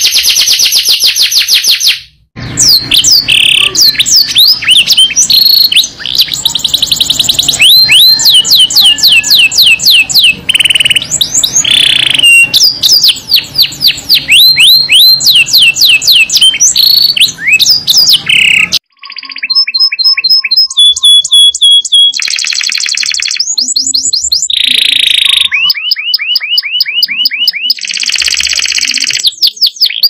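Domestic canaries singing long rolled songs: very fast runs of repeated notes and rising sweeps, broken by short flat whistled tones. The song cuts off abruptly twice, about two seconds in and again about two thirds of the way through, as one bird's recording gives way to another's.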